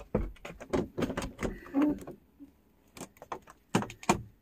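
A fast, irregular run of clicks, knocks and rattles from things being handled and moved about.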